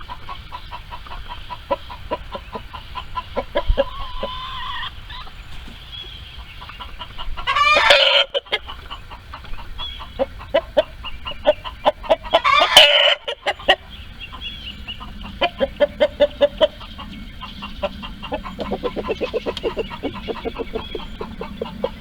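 Chickens clucking and calling in short repeated notes, with two loud, long calls, one about a third of the way in and one just past halfway.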